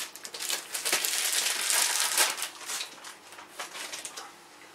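Plastic bag rustling and crinkling as a camcorder box is pulled out of it. The crinkling is dense for the first two and a half seconds or so, then thins to a few lighter crackles and taps as the box is handled.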